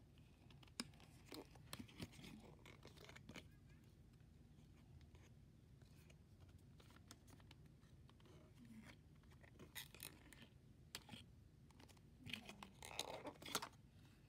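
Cardboard box and plastic case of a 2x2 puzzle cube being handled and opened by hand: faint scattered scrapes and clicks, with a louder spell of scraping near the end.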